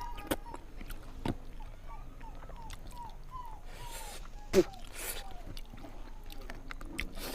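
Mouth sounds of eating close to the microphone: scattered clicks and smacks of chewing and biting. Through the middle, a dog whimpers in a run of about a dozen short, falling whines.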